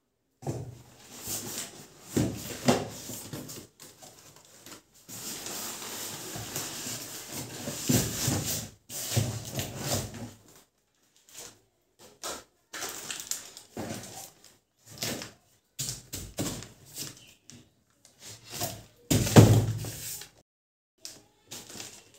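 Unboxing noises: a cardboard box being opened and plastic-wrapped parts pulled out, with rustling of plastic and cardboard and a series of knocks and thumps from handling. The loudest thump comes near the end, as a styrofoam-packed piece is set down.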